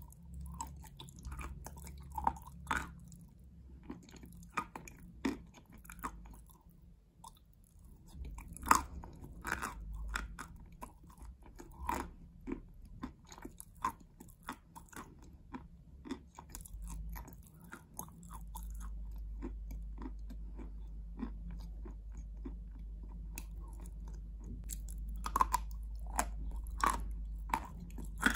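Close-miked biting and chewing of chunks of edible chalk coated in wet chalk paste: irregular crisp crunches and chewing sounds, over a low steady hum that gets louder about two-thirds of the way in.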